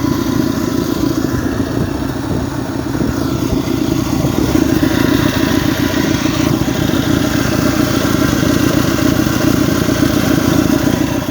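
Chevrolet Opala Diplomata's engine idling with a steady rumble, running smooth and even.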